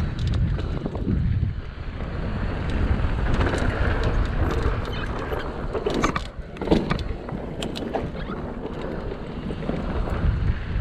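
Wind buffeting the microphone of a mountain bike on a bike park descent, over the rush of tyres on the dirt trail, with scattered sharp knocks and rattles from the bike over bumps, a cluster of them about six to eight seconds in.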